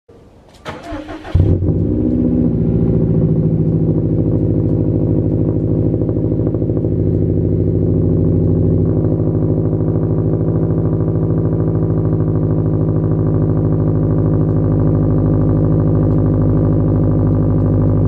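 2020 Subaru WRX STI's turbocharged 2.5-litre flat-four started up: the starter cranks for about a second, the engine catches with a loud burst, then it idles steadily through a Remark axle-back exhaust.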